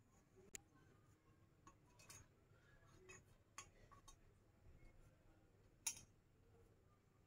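Faint clicks and light clinks of a stainless steel plate being handled on a stone counter as pieces of dough are set into it, the sharpest clink about six seconds in.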